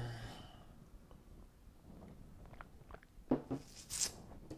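A person drinking from a mug: quiet mouth and swallowing sounds with a few faint clicks, then a short voiced gulp a little over three seconds in and a brief hiss about a second later.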